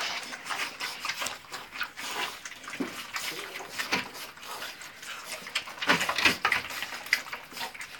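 Pit bull puppies eating from a plastic food tub: irregular crunching, chewing and snuffling, with small clicks against the tub. A denser flurry comes about six seconds in.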